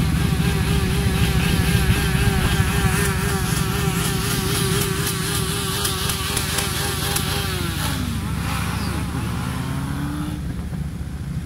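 Cruiser motorcycle engine running under way in a group ride. Its note holds steady, drops about seven and a half seconds in, then climbs again twice near the end.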